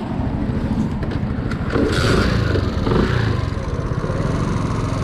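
Honda C90 step-through moped's small single-cylinder engine running steadily, a little louder about two seconds in. The idle (tick over) is out of adjustment and still needs setting.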